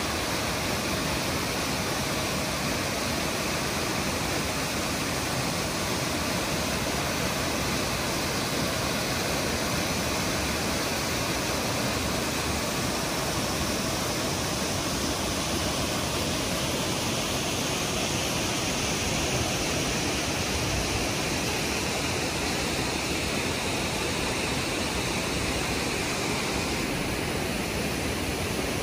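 Rushing stream water: a steady, even rush with no let-up.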